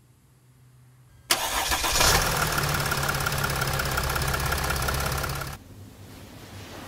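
Sprinter van's diesel engine starting: it comes in suddenly about a second in, then runs steadily with a low hum and a fine rapid ticking, and cuts off suddenly near the end.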